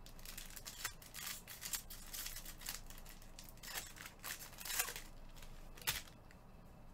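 Foil trading-card pack wrapper crinkling and tearing as it is opened and the cards are slid out, in irregular rustling bursts. One sharp click about six seconds in.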